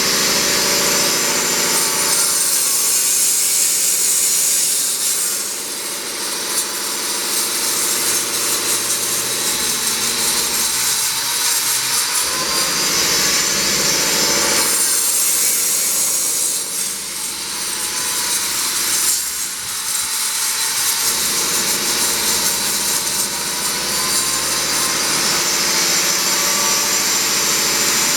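Angle grinder with a widia disc cutting channels into a brick wall, a steady loud grinding that eases briefly a couple of times.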